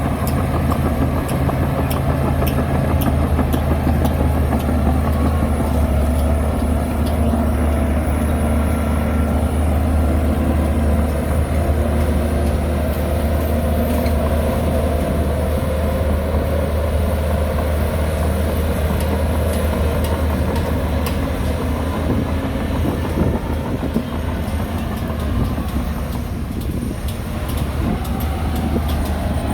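Heavy diesel construction machinery running steadily: a low, continuous engine drone with scattered faint clicks.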